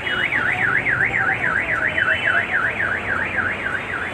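Electronic warbling siren, its pitch sweeping up and down about four times a second, loud and continuous, over low street noise.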